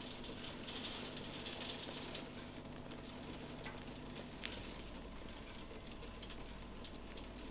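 Faint, irregular clicks of typing on a smartphone's touchscreen keyboard, a few taps a second, with a couple of slightly sharper taps midway and near the end.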